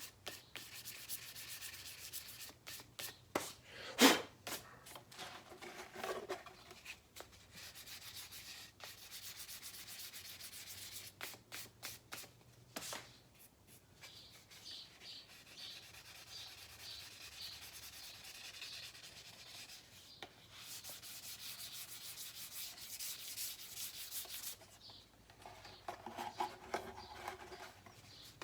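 Hand sanding of the clear coat on a Norton Commando side cover with 600-grit paper, a run of short rubbing strokes, flattening orange peel before the clear coat is redone. A sharp knock about four seconds in.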